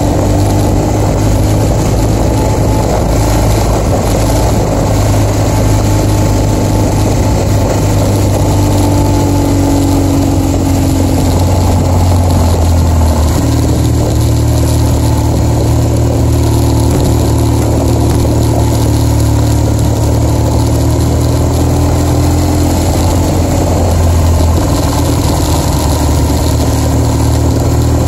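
BMW R1200GS boxer-twin engine running while riding along a dirt road, loud and steady, its note stepping up about halfway through and changing again near the end.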